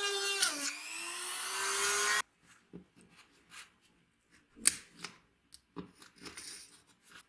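A small electric power tool, such as a drill or rotary tool, runs with a high whine that sags briefly under load and recovers, then stops abruptly about two seconds in. It is followed by quiet scattered clicks and knocks of the workpiece being handled, with one sharper knock.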